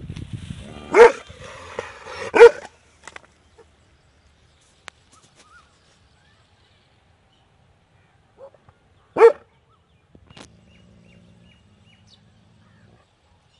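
Large dog barking: two loud barks about a second and a half apart, then a single bark several seconds later.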